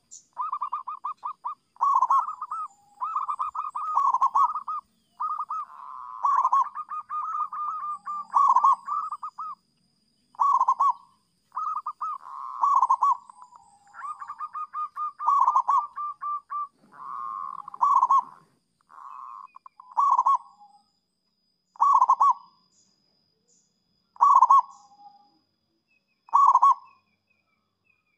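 Zebra dove (perkutut) cooing: phrases of rapid, rattling coos, packed closely together at first, then about two-thirds of the way through giving way to short single phrases about every two seconds.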